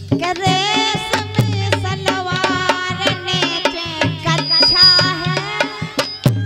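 Live Bundeli folk music: a woman singing a wavering melody over a harmonium's steady notes and a quick, regular hand-drum beat.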